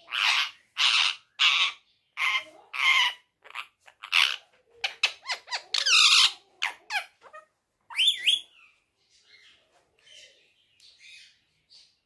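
Indian ringneck parakeet (male) giving a string of loud, harsh squawks, quickening into a choppy run about five seconds in, then dropping to soft chatter for the last few seconds.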